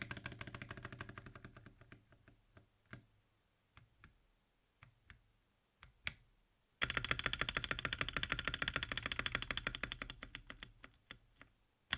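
Mechanical keyboard typing on Akko V3 Creamy Purple Pro tactile switches in a 60% aluminium case with an aluminium plate: clacky keystrokes with some thok. A quick run of typing gives way to scattered single keypresses, then a faster, louder burst of typing starts about seven seconds in and tapers off near the end.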